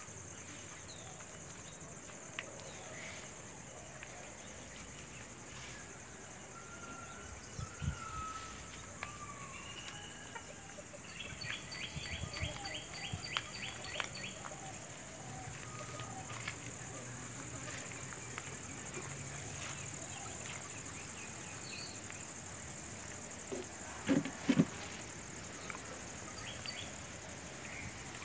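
Outdoor garden ambience: a steady high insect drone with scattered bird chirps, including a rapid trill about twelve seconds in. A couple of low thumps come near the end.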